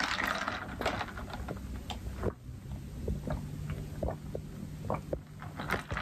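Paper takeaway bag and food packaging rustling and crinkling as it is handled, with irregular small crackles. A steady low hum runs underneath from about two seconds in.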